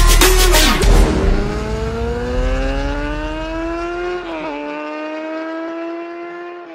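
Sport motorcycle engine accelerating, its pitch rising steadily for about three seconds, dropping at a gear change and then holding steady as it grows fainter. Electronic music cuts out about a second in.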